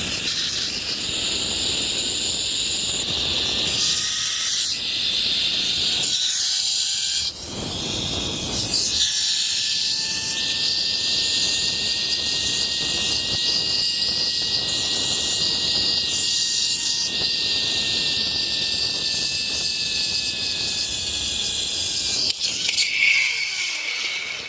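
Zipline trolley running along the steel cable: a whine that climbs in pitch over the first several seconds and then holds steady, over a loud rush of air. The noise dies away a second or two before the end.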